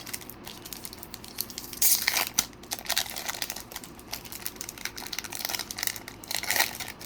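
Foil Pokémon booster pack wrapper crinkling and being torn open by hand, with a run of small crackles that grows denser about two seconds in and again near the end.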